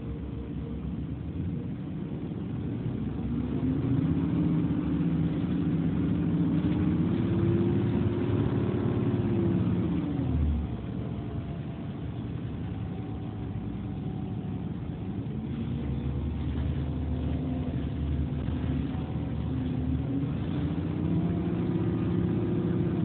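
City bus engine and drivetrain heard from inside the passenger cabin as the bus pulls away and gathers speed. The engine note climbs over several seconds, drops suddenly with a gear change about ten seconds in, then climbs again.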